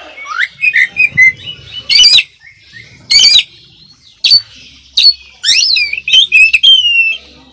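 Caged oriental magpie-robin (kacer) singing loudly: a fast, varied run of whistled and sweeping notes broken by two harsh rasping bursts about two and three seconds in, in the full-isian style packed with imitated calls.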